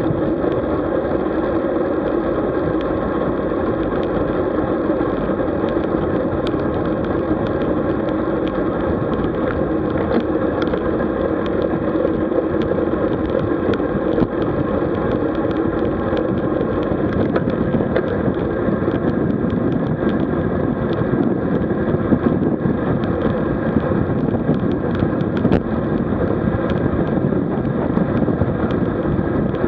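Steady wind and tyre noise from riding a road bicycle, with many small ticks scattered throughout.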